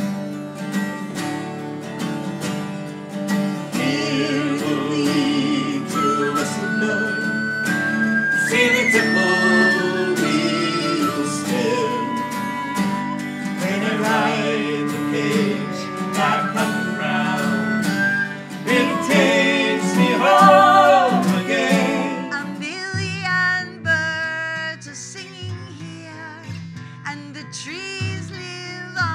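Live acoustic folk band playing an instrumental passage: acoustic guitar, a mandolin-type instrument and cello under a wavering lead melody. About 22 seconds in it changes to a sparser, different piece of music.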